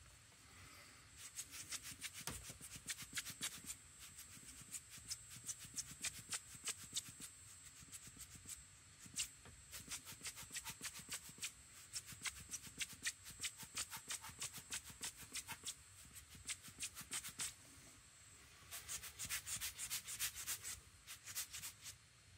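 A small handheld grinder being twisted, giving a dry, scratchy run of rapid clicks in three spells separated by short pauses.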